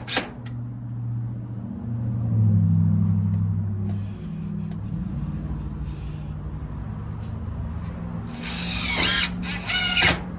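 A small motor running steadily, its speed rising and then dropping a few seconds in. A chicken squawks twice near the end.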